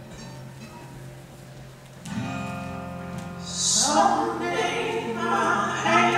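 Music with singing: a quiet passage, then a sustained chord swells in about two seconds in, and a singing voice enters near the four-second mark.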